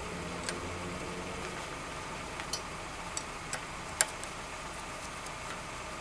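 Light, scattered metallic clicks and ticks of an Allen key working a bolt on a bicycle stem, about seven in all, the sharpest about four seconds in, over a steady low background rumble.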